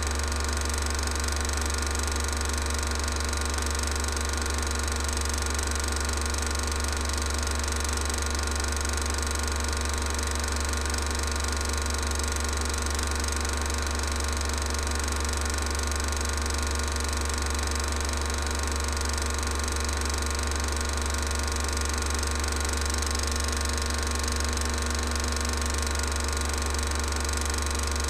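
Steady mechanical running noise with a strong low hum that does not change when the picture cuts: a 16mm cine projector running while the silent film is transferred.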